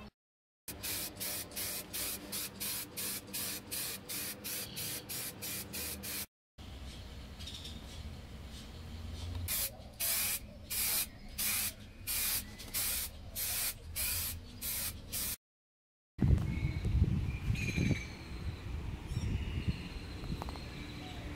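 Aerosol spray-paint can hissing in quick, evenly repeated short bursts as thin coats go onto a plastic side skirt, then in longer bursts about one a second. After a cut about 16 seconds in, a low outdoor rumble with a few faint chirps.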